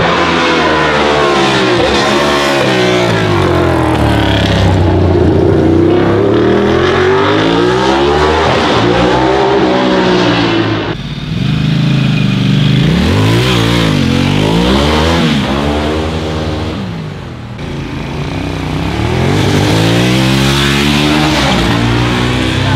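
Motorcycle engines revving and accelerating hard, their pitch rising and falling again and again. Around the middle, a Ducati V-twin cruiser revs as it pulls away.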